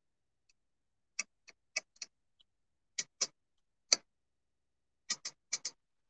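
About eleven short, sharp clicks in irregular clusters of two to four, the loudest a little before the four-second mark.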